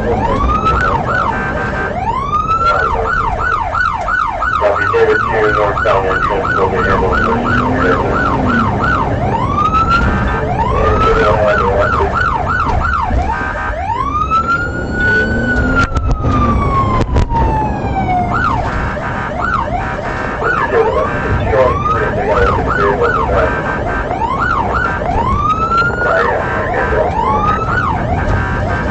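Police car siren cycling through its tones: a fast yelp of about three rises a second, single rising whoops, and a long slow wail rising and then falling about halfway through, over steady road noise.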